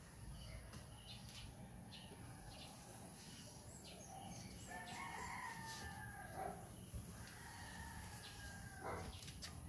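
A rooster crowing faintly, one long drawn-out call starting about halfway through.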